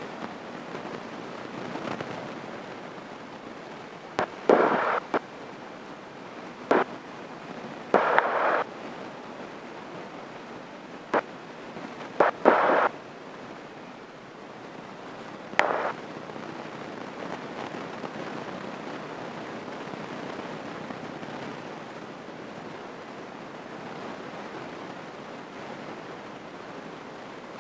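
Steady hiss broken by a cluster of sharp knocks and short scraping bursts, about seven in all, over roughly ten seconds.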